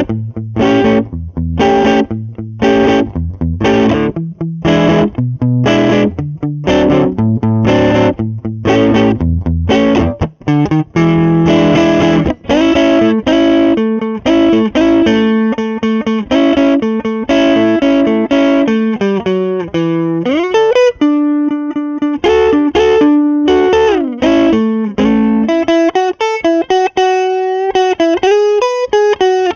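Electric guitar, a modified MIJ Fender Telecaster with a Seymour Duncan Jazz humbucker, played through a Lovepedal Blackface Deluxe overdrive with the gain at 3 o'clock. It plays short chopped chords at first, then ringing chords and single-note phrases, ending in a lead line with string bends and vibrato.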